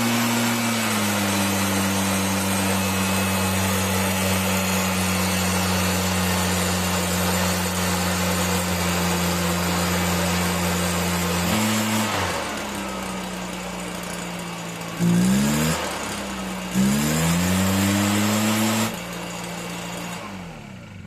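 Stihl BR340 backpack blower's two-stroke engine running after water was drained from its fuel. It runs steadily at high speed, drops back about twelve seconds in, is revved up sharply twice, then winds down and shuts off near the end.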